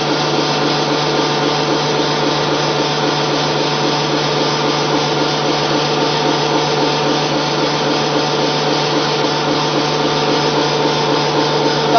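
Small electric flat die pellet mill running steadily, its motor and gear drive humming as the rollers turn over the die through a hopper of animal-feed mash.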